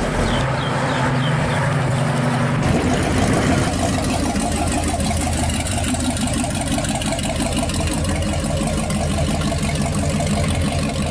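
Car engines in two clips: a Chevelle driving past, then, a little under three seconds in, a customised Morris Minor convertible's engine running with an even, pulsing exhaust note as it pulls away.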